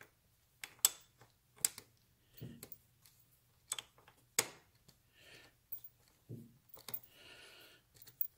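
Scattered sharp clicks and knocks, about five in the first four and a half seconds and a few lighter ones later, from hand tools and small carburetor fittings being handled while fitting a fuel line to a motorcycle's carburetor. A faint steady hum lies underneath.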